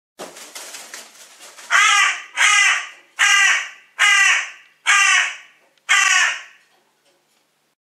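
Crow cawing six times in a steady series of harsh calls, about one every 0.8 s, after a faint rapid fluttering in the first second and a half.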